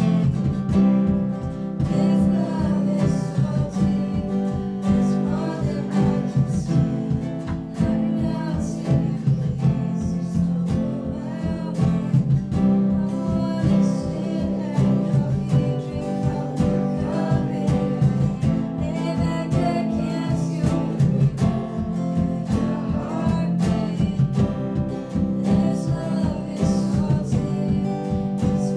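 Live worship band playing a song: a woman singing and strumming an acoustic guitar over a drum kit keeping a steady beat and a second, electric guitar.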